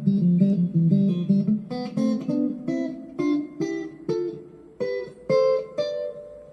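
Electric Strat-style guitar played clean through a small practice amp on the neck-and-middle pickup setting: a quick run of low notes, then single plucked notes about half a second apart climbing up the neck, each left to ring and fade.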